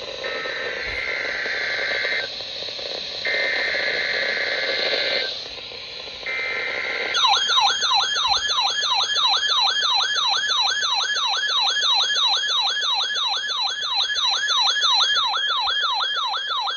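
NOAA Weather Radio test signal over radio hiss: three bursts of buzzy SAME digital header data tones, then a warbling electronic alert siren that sweeps up and down about two and a half times a second. The siren is a weather radio receiver's alarm set off by the weekly test.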